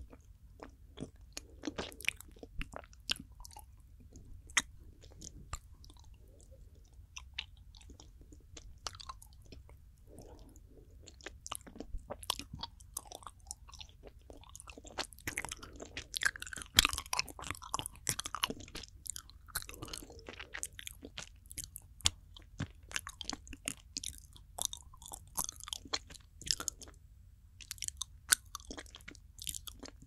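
Close-up mouth sounds of soft, fudgy planet chocolate being chewed and rolled around the mouth right at the microphone: a steady run of sticky clicks and smacks, quieter for a few seconds early, busiest about halfway through and again near the end.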